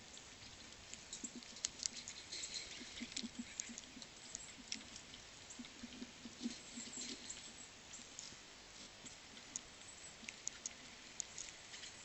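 Irregular light clicks and taps, with a few soft low thumps in the first half, from small animals feeding, such as birds and squirrels pecking and nibbling seed.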